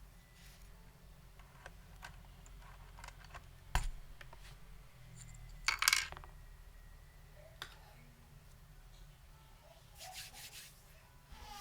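Scattered handling sounds: a sharp knock about four seconds in, a loud scraping rustle about six seconds in, and a few faint clicks and rustles near the end.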